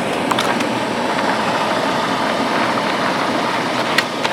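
BougeRV 4000 BTU portable air conditioner with a Panasonic compressor running on turbo: a steady rush of fan air from its exhaust outlet. A few light clicks come about half a second in and again near the end.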